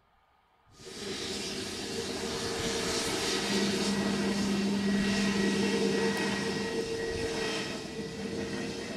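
Airbus A321neo airliner's jet engines running as it moves along the runway, coming in suddenly about a second in and then holding steady: a broad rush of noise with a low hum and a whine in it.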